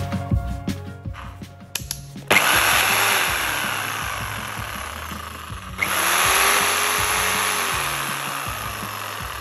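A 750 W Okatz JS100-QL top-handle jigsaw's motor and blade running free with no load. It starts about two seconds in, surges louder again about six seconds in, and fades a little after each start.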